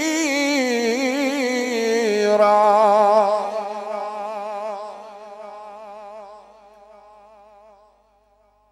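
A male Quran reciter (qari) chants one long melismatic phrase of tilawat, unaccompanied, with a wavering vibrato. The voice swells to its loudest about two to three seconds in, then fades away and ends about eight seconds in.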